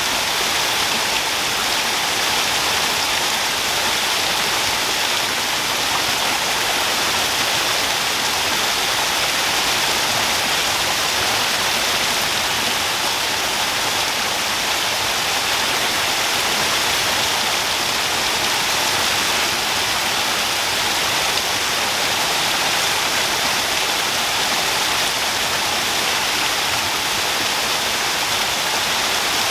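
Small waterfall cascading over mossy rocks into a shallow pool: a steady, hissy rush of falling water with little low rumble.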